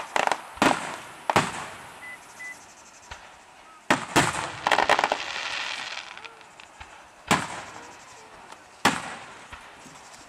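Aerial fireworks shells bursting with sharp bangs: several in quick succession at the start, a rapid cluster of reports with crackling about four seconds in, then single bangs about seven and nine seconds in.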